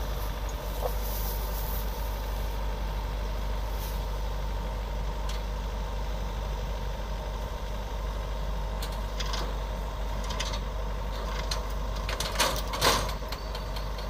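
Yanmar AW82 combine harvester's diesel engine running steadily as it takes up the tow line on a broken-down tracked rice cart. Two loud metallic knocks come near the end.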